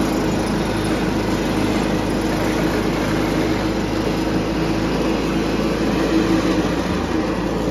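John Deere 210 garden tractor's Kohler single-cylinder engine, about 10 horsepower, running steadily at full throttle as the tractor drives along in second gear.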